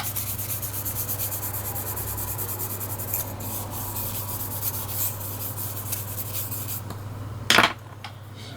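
Soft toothbrush scrubbing isopropyl alcohol over a TV remote's circuit board in quick, short back-and-forth strokes, cleaning dirt off the contacts. Near the end comes a short, sharp knock, the loudest sound.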